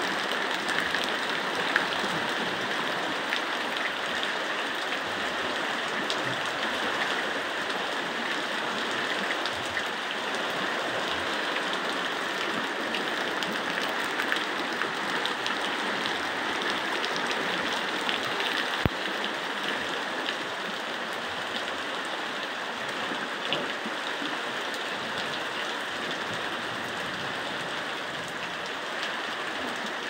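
Steady rush of a rain-swollen, muddy stream in flood, mixed with heavy rain falling, with a few scattered ticks.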